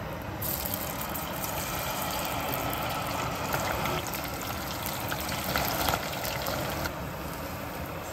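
Batter-coated vegetable strips for tempura go into hot oil and sizzle, a dense crackle of many small pops. It starts about half a second in, is loudest around the middle and eases off near the end.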